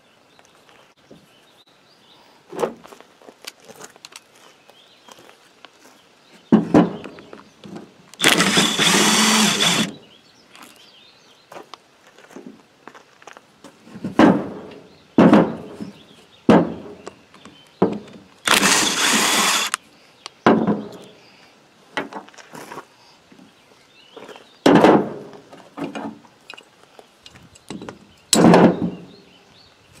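DeWalt cordless drill running in two bursts of about a second and a half, about eight and nineteen seconds in, backing out the bolts that hold a hydraulic pilot control valve body together. Between the bursts, short knocks and clatter of metal parts being handled and set down.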